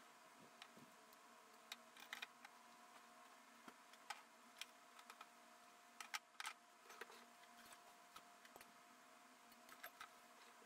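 Faint, scattered clicks and clinks of small tools and bits being set into shallow wooden drawers, with a faint steady hum underneath.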